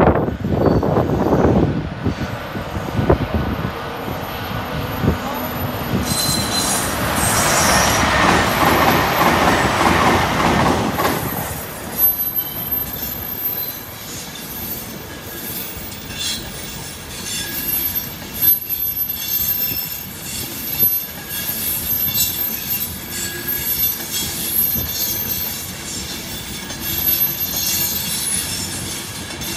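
A train running through the station, its wheels clattering over the rail joints and squealing. It is loudest in the first dozen seconds, then settles to a quieter, steady rumble.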